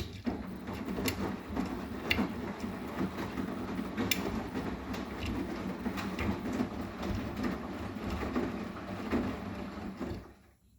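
Arçelik 9120M washing machine drum turning during the wash: the motor runs while the laundry tumbles, with irregular clicks and knocks. The drum stops abruptly about ten seconds in.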